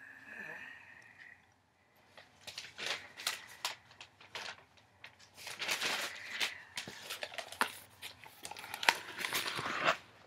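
Magazine pages being handled and turned: paper rustling and crinkling with sharp irregular flaps, growing busier and louder in the second half.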